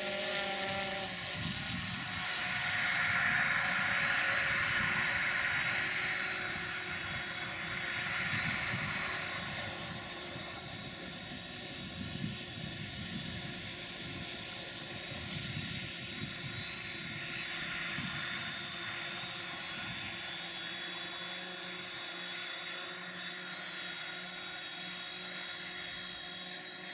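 Distant diesel locomotive running, with a steady high-pitched whistle over a low rumble. A rushing sound swells up in the first third and then eases.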